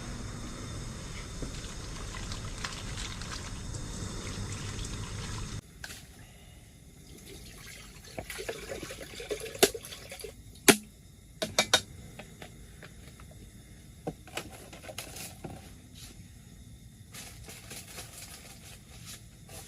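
Water being poured and trickling, with clinks and knocks of pots and utensils while rice is measured and readied for steaming. In the first few seconds a steady hiss with a low hum cuts off suddenly.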